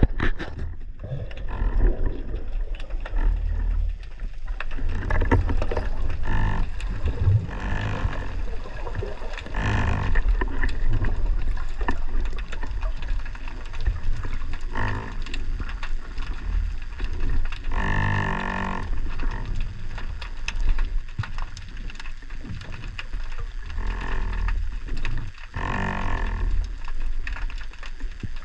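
Underwater sound picked up by an action camera in its waterproof housing during a dive: a steady low rumble of moving water, broken by a few short muffled hums, the loudest about 18 seconds in.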